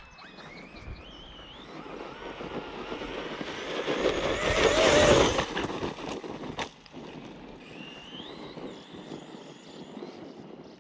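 Electric RC car's brushless motor whining as it accelerates across dirt, the pitch rising and falling with speed. It passes close about four to five seconds in, the loudest part, with tyre and dirt noise, and a sharp knock follows shortly after.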